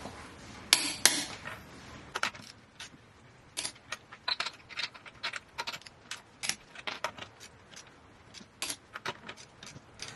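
Click-type torque wrench on wheel lug nuts set to 140 foot-pounds: an irregular series of sharp metallic clicks and clacks as each nut is torqued, the loudest about a second in.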